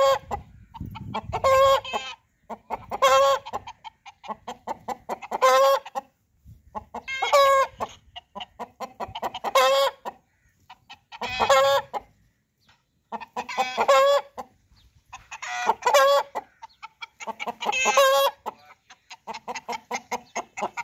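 Aseel rooster cackling over and over: each call is a run of quick clucks that builds into a loud squawk, about one every two seconds.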